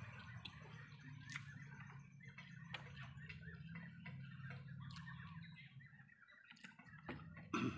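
Quiet eating sounds: small clicks and taps of hands and a spoon on a plate and a plastic food container, with birds chirping in the background. A low hum fades out about six seconds in, and a louder knock comes near the end.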